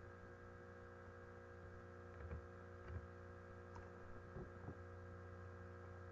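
Near silence: a faint steady electrical hum, with a few soft knocks in the middle.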